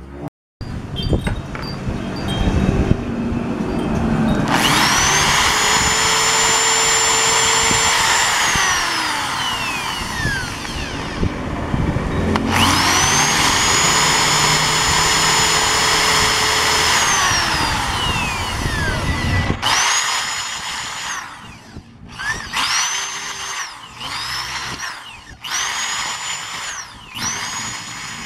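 Electric drill drilling out the retaining roll pin of a motorcycle ignition lock cylinder. It makes two long runs, each winding down in pitch as the trigger is let go, then a string of short trigger bursts near the end.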